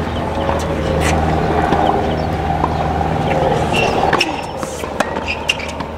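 A steady low hum over crowd chatter; the hum cuts off about four seconds in. Then come a few sharp pops of a tennis ball being struck and bouncing during a rally.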